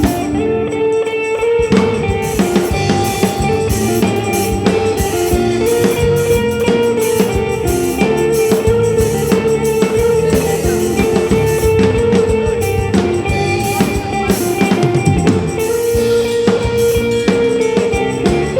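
Band playing an instrumental break, with a drum kit keeping a steady beat of bass drum and snare under a sustained melody line.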